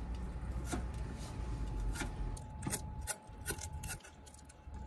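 A kitchen knife slicing shima rakkyo (Okinawan shallots) on a cutting board: several short, irregular knife strokes, each ending in a click as the blade meets the board.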